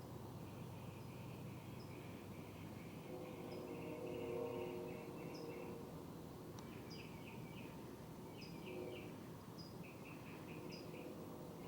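Outdoor chirping: clusters of quick trilled chirps with short, higher single notes repeating about once a second, over a faint low hum that swells about four to five seconds in.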